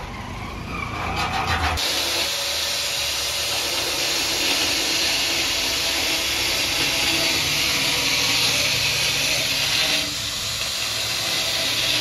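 Handheld electric angle grinder grinding into the steel frame of an iron gate: a steady, harsh grinding hiss that starts about two seconds in and eases for a moment near the end.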